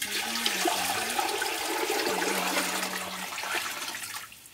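Water poured from an aluminium jug into a large copper pot: a steady gushing splash that thins out and fades near the end as the jug empties.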